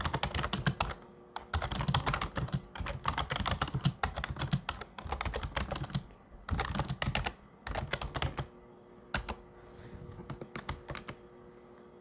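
Typing on a computer keyboard: fast runs of keystrokes for about the first six seconds, a short burst about seven seconds in, then a few scattered keystrokes.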